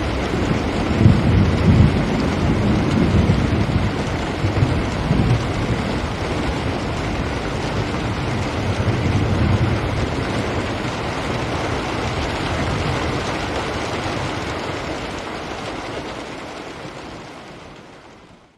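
Steady rain falling on a window, with low rumbles about a second in and again around nine seconds. The sound fades out over the last few seconds.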